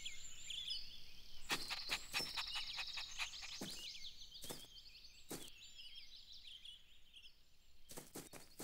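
Faint garden ambience of small birds chirping and twittering, with several short knocks or taps: a quick cluster about one and a half seconds in, single ones over the next few seconds, and two more near the end.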